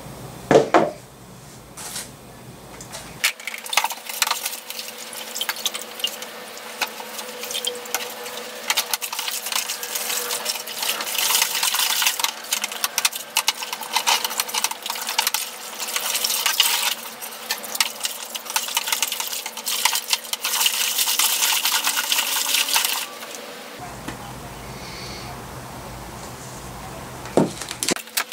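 Water sloshing and splashing in a plastic bucket as gloved hands agitate a cloth bag soaking in an OxiClean solution, an irregular run of splashes lasting about twenty seconds. A short thump comes just before, about half a second in.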